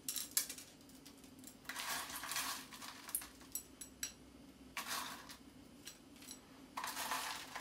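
Crumble topping pinched by hand from a small stainless steel bowl and sprinkled onto desserts in glasses: quiet rustling scrapes in a few short spells, with light clicks of the metal bowl.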